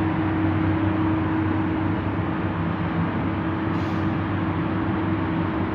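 Heavy diesel machinery running steadily under work, with a constant engine drone and a steady hum above it.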